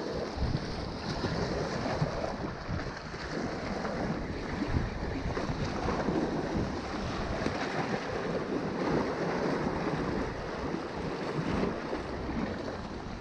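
Small waves washing and breaking against shoreline rocks in a steady rush, with wind buffeting the microphone.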